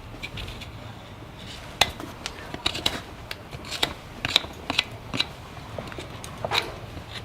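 Farrier's hand tools working on a horse's hoof: irregular sharp clicks and snips, a dozen or so, some louder than others, over a low steady hum.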